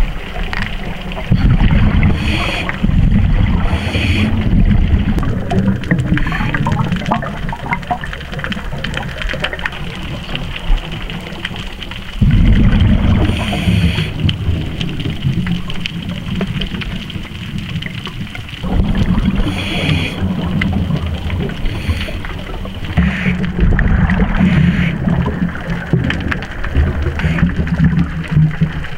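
A scuba diver's breathing through a regulator, heard underwater: four long low rumbles of exhaled bubbles lasting several seconds each, with short hisses of inhalation between them.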